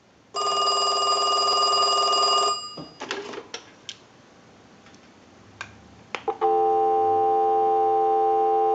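Mickey Mouse telephone ringing once for about two seconds on a test ring cycle. This is followed by a few clicks as the line is picked up, then a steady dial tone from about two-thirds of the way in, heard through an amplified pickup.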